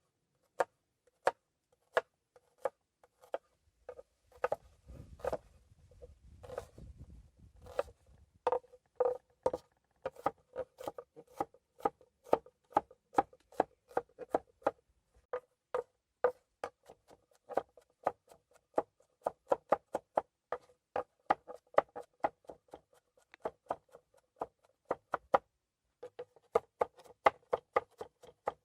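A knife chopping food on a cutting board: a series of sharp knocks, spaced out at first, then settling into a brisk rhythm of about three a second. A low rumble runs underneath for a few seconds early in the series.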